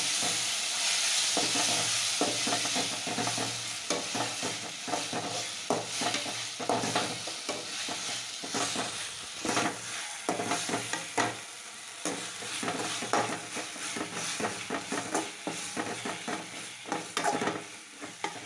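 Onion, tomato and freshly ground biryani masala sizzling in a metal kadai while a metal ladle stirs it, with frequent quick scrapes and clinks against the pan. The sizzle is loudest in the first few seconds, then settles lower. The masala is being fried until its raw smell goes.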